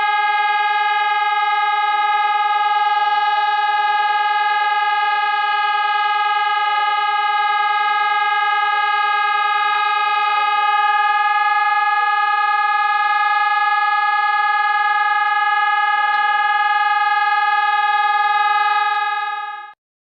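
Emergency-alert alarm tone: one loud, steady electronic tone held on a single pitch with a buzzy edge, cutting off near the end.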